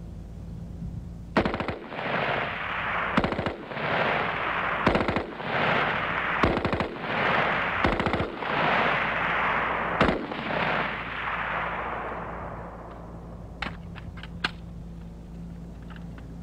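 M16-type rifle fire on a firing range: sharp cracks mixed with rapid strings of fire, which die away about three-quarters of the way through, followed by a few scattered single shots.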